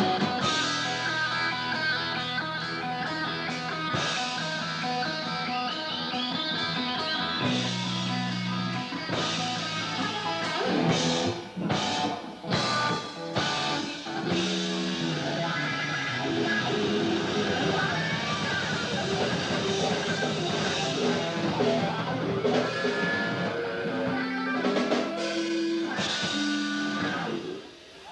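Live rock band playing an instrumental passage with electric guitar and drum kit, ending just before the close.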